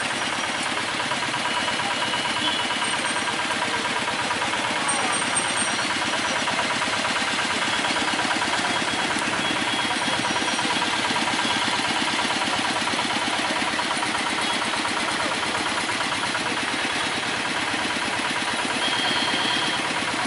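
Vehicle engine idling close by, a steady, fast clatter that does not change.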